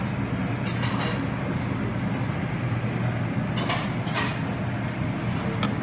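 Restaurant room noise: a steady low hum with a few short clicks and clinks, such as a serving spoon against a buffet tray.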